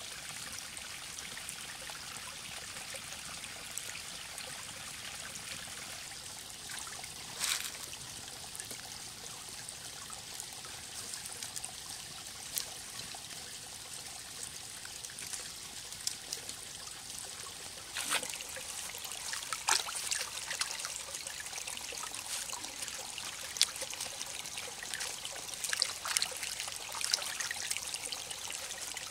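Shallow forest stream trickling and splashing steadily, with scattered short clicks and splashes that come more often in the second half.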